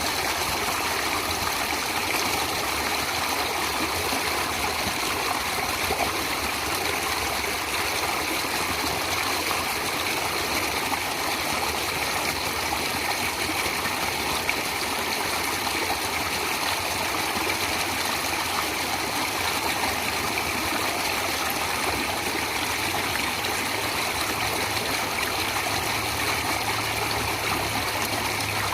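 A stream of water flowing and trickling in a steady, unbroken rush.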